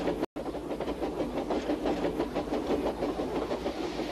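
A train running along its track with a quick, even clatter.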